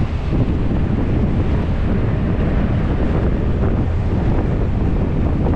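Wind rushing over the microphone of a camera on a moving motorbike, a steady low rumble of buffeting air.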